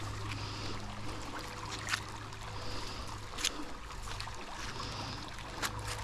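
Steady background of trickling water with a constant low hum, broken by a few sharp clicks as a gloved hand handles a neodymium fishing magnet.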